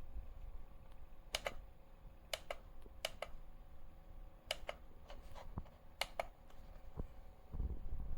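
A series of light, sharp clicks, mostly in close pairs a fraction of a second apart, over a faint steady hum.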